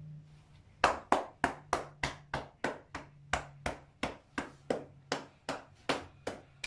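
A massage practitioner's open hand patting a man's back through his shirt in steady, even slaps, about three a second, starting about a second in.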